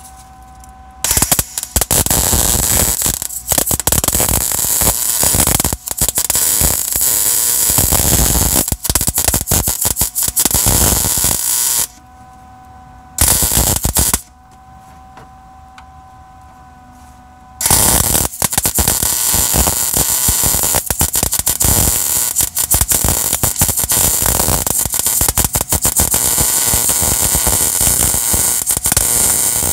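MIG welder arc crackling and hissing as a bead is run on the rusted steel frame of a Toyota Tundra, welding the power steering rack mount back on. The arc starts about a second in and runs until about twelve seconds, comes back for about a second, stops again, then starts once more at about eighteen seconds and keeps going.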